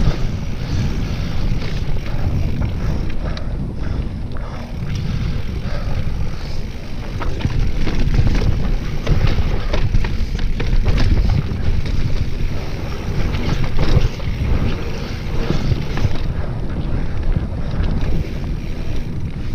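Mountain bike riding fast down a dirt singletrack: a continuous low rumble of tyres and wind rushing over the microphone, with scattered clicks and knocks from the bike over the rough ground.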